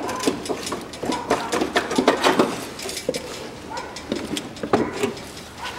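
Hand tools and metal parts clinking and knocking in a car's engine bay while the front engine mount is being unbolted, as a series of irregular sharp clicks that thin out after the first few seconds.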